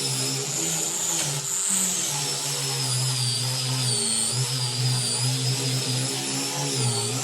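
Electric power sander running on a wooden panel. Its motor hum and high whine rise and fall in pitch as it is worked across the wood.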